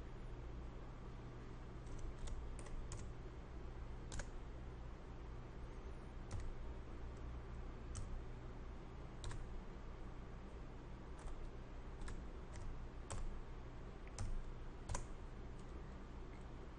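Keystrokes on a computer keyboard as numeric angle and distance values are typed in: scattered single taps and short runs of a few keys, over a faint steady hum.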